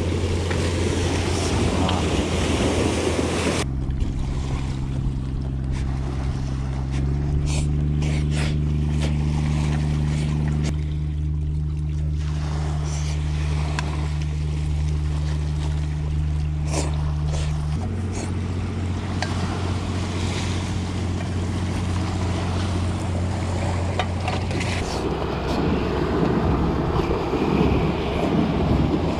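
A boat's engine running steadily, its low hum stepping to a new pitch a few times, with wind and surf at the start and again near the end.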